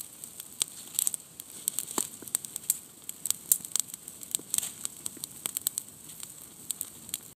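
Small campfire of hemlock twigs crackling with irregular sharp pops as fresh dry twigs catch and flare up.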